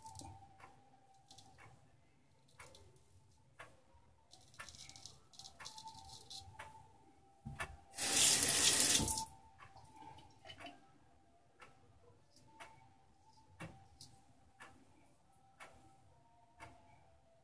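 Bathroom tap turned on and running into the sink for a little over a second about halfway through. Behind it, a wall clock ticks about once a second.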